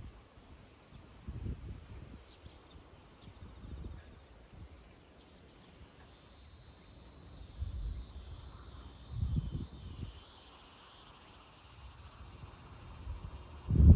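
Outdoor ambience with faint, rapidly repeating insect chirping, broken by several short low rumbles, the loudest at the very end.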